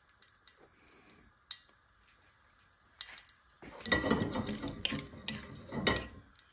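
Cumin seeds frying in hot oil, giving scattered faint pops. About three and a half seconds in, a ladle is stirred and scraped around the aluminium pan, which is louder and continues for a couple of seconds.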